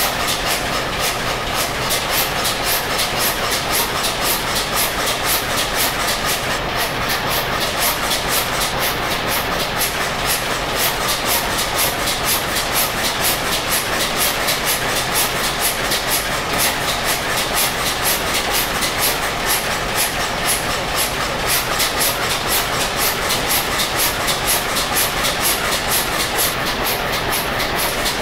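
Large old stationary multi-cylinder diesel engine running steadily, its firing strokes making an even, fast rhythmic beat over a steady low hum.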